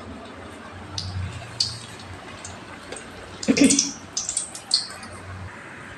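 Bajji-making sounds: a spoon working batter in an aluminium pot and bajjis frying in oil in a kadai, heard as a few short wet clicks and splashes over a low hum. The loudest cluster comes about three and a half seconds in.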